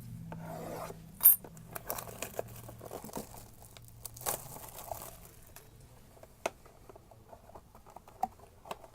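Sealed trading card box being opened by hand: plastic wrap crinkling and tearing, with scattered cardboard clicks and taps and one sharp click about a second in.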